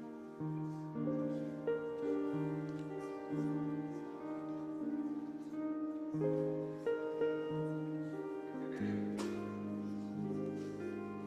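Grand piano playing slowly, with held chords under a simple melody.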